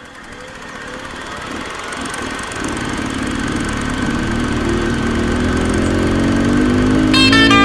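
Dirt bike engine running, growing steadily louder. Guitar music comes in near the end.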